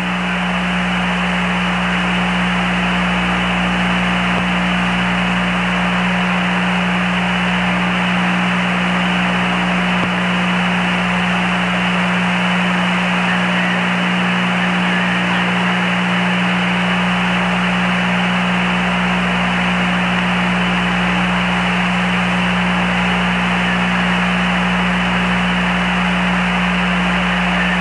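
Steady radio hiss on the Apollo 11 air-to-ground voice downlink, with a constant low hum under it. The channel is open between transmissions.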